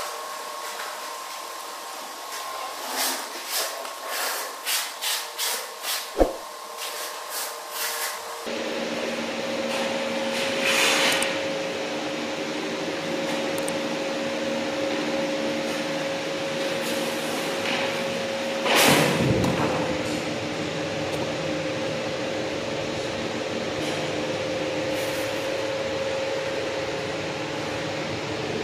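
A quick run of about a dozen knocks over some five seconds, then from about eight seconds a steady machine hum, with a louder knock or scrape around nineteen seconds.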